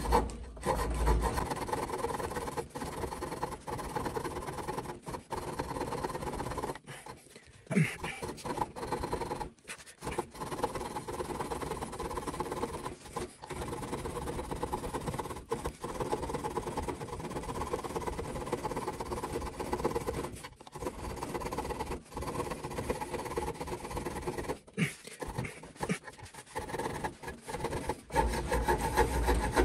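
Small saw blade of a Mikov Stovka (100-NH-7A) pocket knife cutting through a wooden rod, a steady run of back-and-forth rasping strokes with a few brief pauses. The blade cuts only slowly and with hard work.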